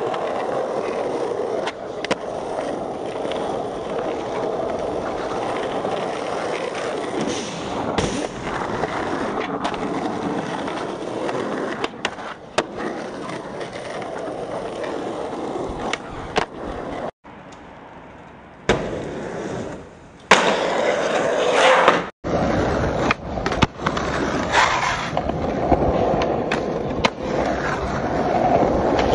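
Skateboard wheels rolling over asphalt and paving slabs, broken by many sharp clacks of the board popping and landing during flatground tricks. The sound changes abruptly a few times.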